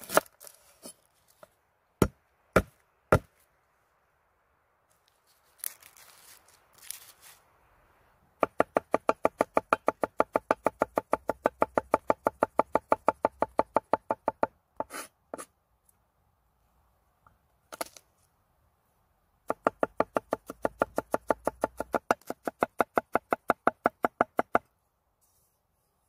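Curved steel knife chopping garlic on a wooden cutting board: a few single knocks, then two long runs of rapid, even chopping at about seven strokes a second, with a few single strikes between them.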